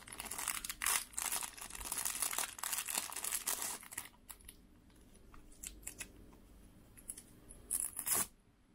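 Clear plastic accessory bags crinkling as hands handle the bagged straps, busy for about four seconds, then only a few soft rustles, and a short burst of rustling near the end.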